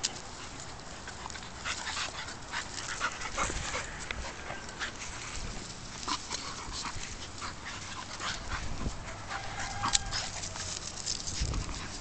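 Two dogs play-fighting on grass, a blue-nose American Staffordshire terrier and a pit bull puppy: scuffling and rustling throughout, with panting and a short whimper near the end.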